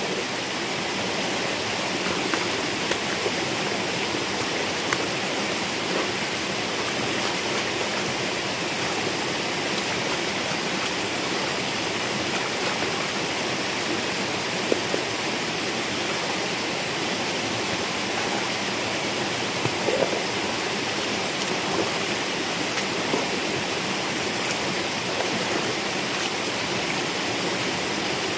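Rocky stream running steadily, a constant rush of water, with a few short scrapes and knocks from a twig broom sweeping mud along a concrete channel.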